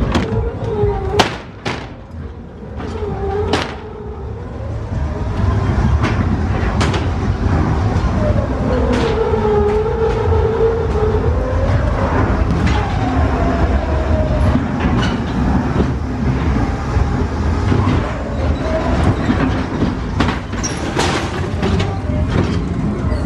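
Ghost train car running along its track: a steady low rumble, with several sharp knocks in the first few seconds as the car pushes through the swing doors, and a wavering whine around the middle.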